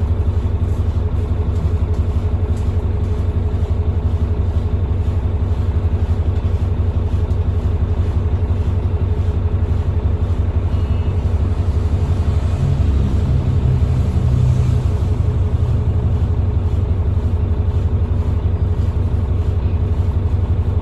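Cummins ISBe diesel engine of a Transbus Trident double-decker bus running steadily, with a brief rise in the engine note about two-thirds of the way through.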